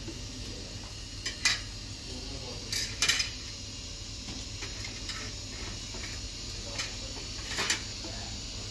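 Metal kitchen utensils clinking against plates and a metal serving tray while cake slices are served. A few sharp clinks come about a second and a half in, around three seconds in, and near the end, over a steady low hum.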